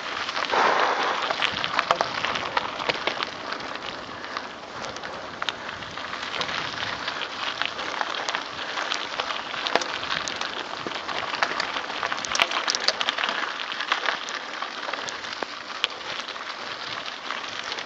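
Mountain bike tyres rolling over a gravel forest track: a steady crunching noise full of small clicks and crackles from loose stones.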